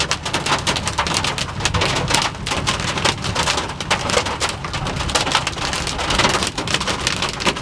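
Hailstones drumming on a car's body and windshield in a severe hail storm: a dense, loud, unbroken patter of hard impacts.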